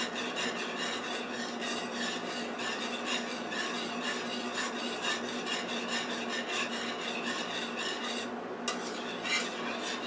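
Wire whisk stirring cheese into a thin sauce in a metal frying pan, scraping the pan about four strokes a second so the cheese can melt. The whisking stops near the end, followed by a couple of light knocks.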